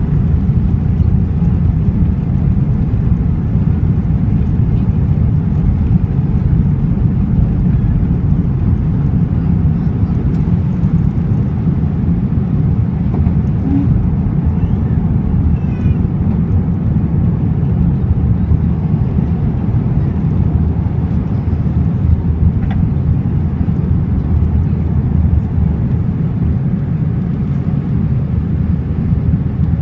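Cabin noise of an Airbus A319 taking off, heard from a seat over the wing: the jet engines at takeoff thrust and the rushing air make a steady deep rumble as the airliner lifts off and climbs.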